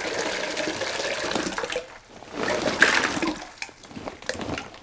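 Coarse water-softener salt crystals poured from a plastic bag into a bucket of water, a splashing, hissing pour. It breaks off about two seconds in, then comes again more briefly and fades.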